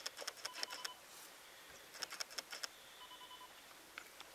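African elephant feeding on dry brush: faint bursts of crackling and snapping twigs, about every two seconds.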